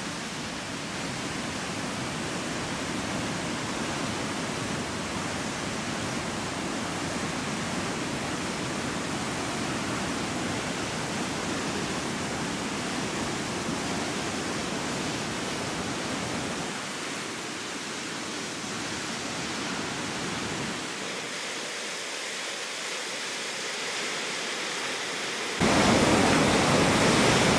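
Steady rushing roar of a large waterfall, Tännforsen. The level shifts abruptly a couple of times and jumps louder near the end, as if the sound is switching between different vantage points.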